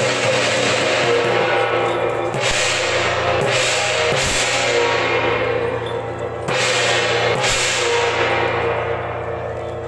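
Temple procession percussion: large cymbals crashing repeatedly over drums, each crash ringing out, with sustained ringing tones underneath.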